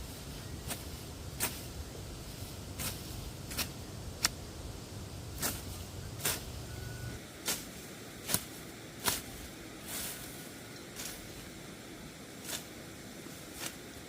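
A series of short, sharp knocks or taps, irregularly spaced at about one a second, over a low hum that stops about seven seconds in.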